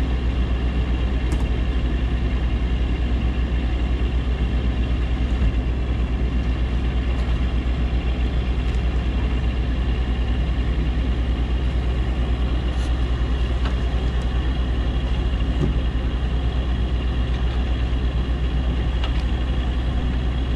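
Hydraulic excavator's diesel engine running steadily beside the log car, a low even drone with a fast regular pulse.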